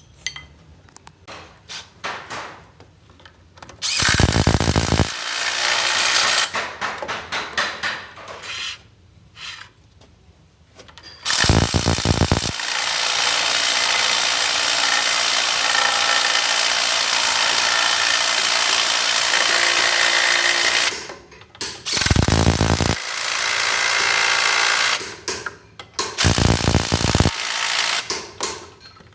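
A power tool running in bursts: a short burst, a long steady run of about ten seconds, then two more short bursts, with knocks in between.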